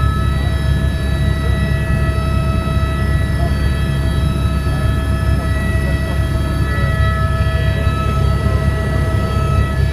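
Helicopter in flight: a loud, steady low drone with several steady high whining tones above it.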